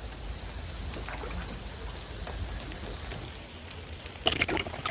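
Chicken teriyaki skewers sizzling over a charcoal grill: a steady hiss with faint crackles, and a few louder clicks near the end.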